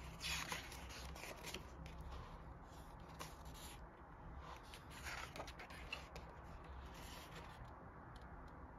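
Paper pages of a small paperback colouring book being turned by hand: soft rustling and light flicks of the sheets, with the clearest rustles near the start and about five seconds in.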